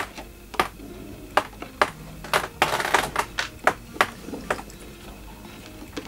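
Clicks and light knocks of clothes pegs and a wet photographic print being handled as it is pegged up on a drying line, with a brief rustle about three seconds in; the clicks stop about two thirds of the way through.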